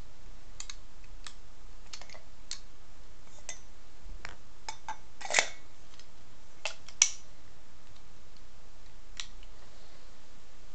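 Airsoft grenade-launcher pistol being handled: scattered light clicks and clacks of its mechanism, with two louder clacks about a second and a half apart, about five and seven seconds in, as the break-action barrel is tipped open and shut.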